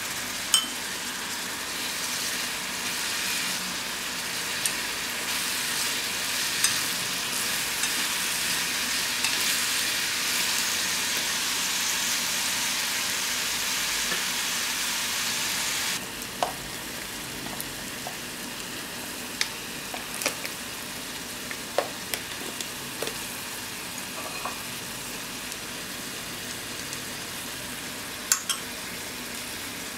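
Sliced beef and onions sizzling in a small skillet with soy sauce. About halfway through the sizzle drops suddenly to a quieter level, and a utensil clicks against the pan a dozen or so times as the meat is stirred.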